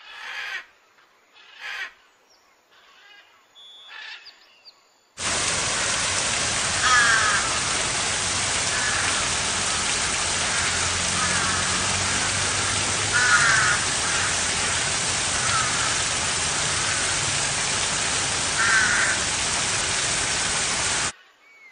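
Small waterfall rushing steadily, with crows cawing over it in short calls every couple of seconds. The rushing water cuts in abruptly about five seconds in and stops just as abruptly near the end.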